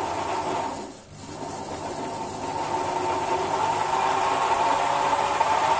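Sherline micro lathe running free: its motor and belt-driven spindle make a steady mechanical whine that dips briefly about a second in, then gets gradually louder. The owner finds it noisy for its size and can't tell whether the noise comes from the motor or from the headstock's sealed spindle bearings.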